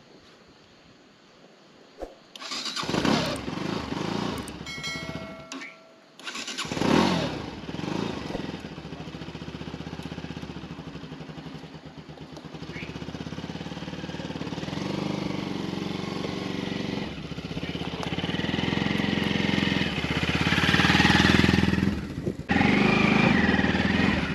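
Motorcycle engine started about two seconds in and revved in short rising bursts, then running steadily and growing louder as the bike moves off.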